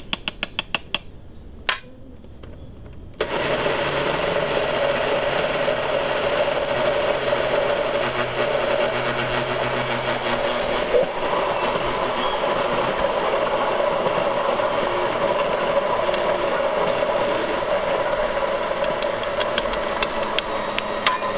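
A quick run of clicks, then a countertop blender starts about three seconds in and runs steadily at one speed, puréeing pumpkin soup in its jar.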